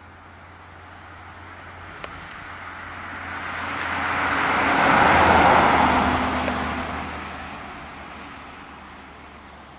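1956 Ford Fairlane Sunliner with its 292 cubic-inch V8 driving past at road speed: engine and tyre noise swell as it approaches, are loudest about five seconds in, then fade as it goes away.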